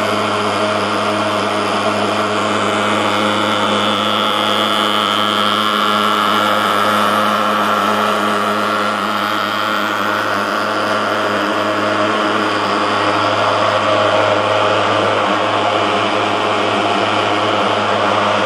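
TS 35A pulse-jet thermal fogger running steadily while fogging, a loud continuous buzzing drone that does not change in pitch or level.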